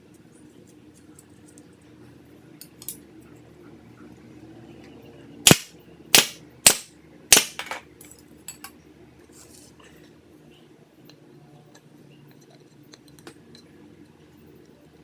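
Four sharp, loud impacts in quick succession, a little over half a second apart, followed by a few fainter ticks.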